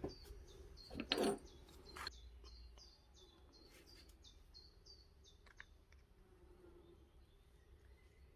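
A small bird chirping over and over, short high calls about three a second, fading out after about five seconds. A few sharp knocks come in the first two seconds.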